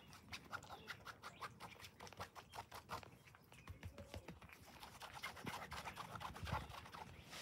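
A cat chewing food: faint quick clicks, about four a second, thinning out after about four seconds.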